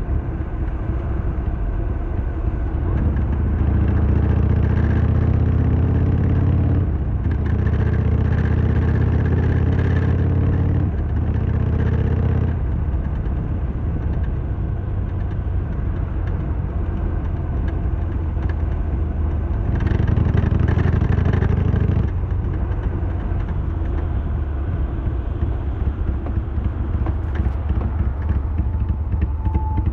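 Harley-Davidson Sportster XL1200R's air-cooled V-twin engine on the move, pulling up through the gears. Its pitch climbs and then drops at shifts about seven and eleven seconds in, and it runs more evenly after that, with a louder stretch around twenty seconds in.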